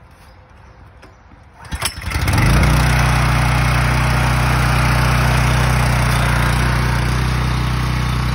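Honda GX390 single-cylinder engine on a DeWalt 4200 PSI pressure washer starting: a short clatter about two seconds in, then it catches and settles into a loud, steady run.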